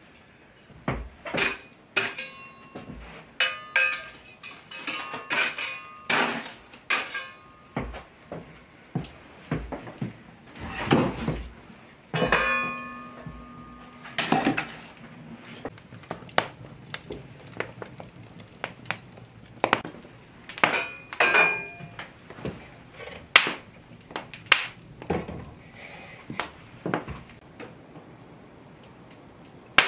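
Iron cookware and fire tools clanking at an open hearth: irregular metal knocks and clinks, some ringing briefly, thinning out near the end.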